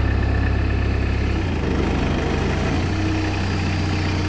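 Homemade tractor's engine running steadily at idle, powering a hydraulic log splitter; its low note shifts slightly about a second and a half in.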